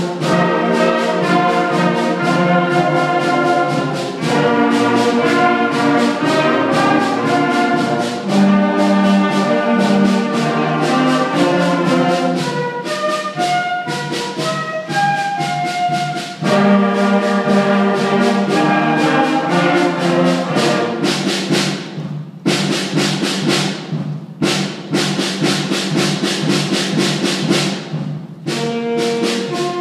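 A sixth-grade school concert band of flutes, clarinets and brass playing a piece together in sustained, stepwise chords over a steady beat of sharp strikes. For a stretch in the latter part the held wind notes thin out and the strikes carry the music.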